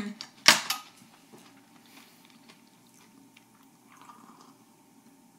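A metal fork set down on a ceramic plate, two sharp clinks in the first half-second, then faint chewing of a crisp chocolate-dipped pastry.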